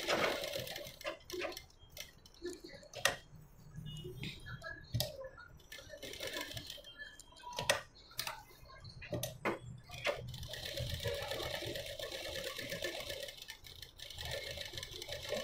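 Sewing machine stitching through layered blouse fabric and lining, running in short stop-start runs with a longer steady run from about ten seconds in until near the end.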